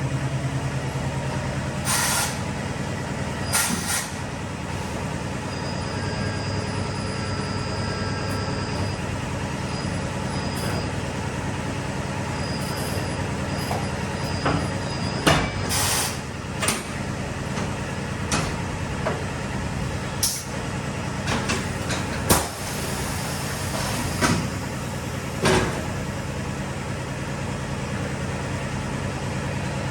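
Tire-shop machinery: a steady low hum with short, sharp bursts of hiss and clicks scattered through it, about a dozen in all.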